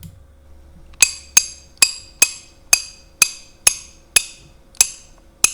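Slowed-down recording of a lighter clicking, edited into a ratchet sound effect: a run of sharp metallic clicks, each with a short ringing tail, about two a second, starting about a second in.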